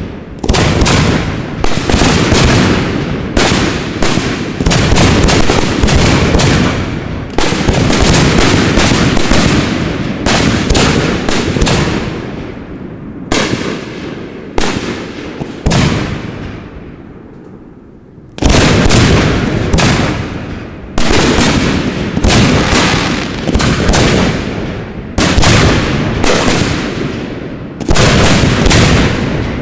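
Aerial firework ball shells bursting one after another, loud bangs about one or two a second, each with a rolling rumble. The bangs thin out past the middle to a brief lull, then resume thick and fast.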